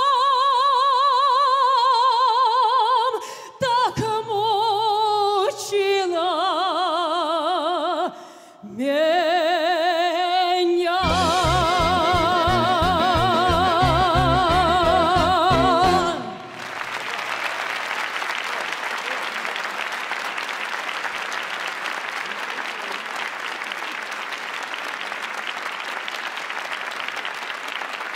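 A woman's voice sings the long closing notes of a Russian romance with wide vibrato, backed by an ensemble with accordion. Rhythmic chords come in about 11 seconds in, the music stops about 16 seconds in, and a large audience applauds steadily for the rest.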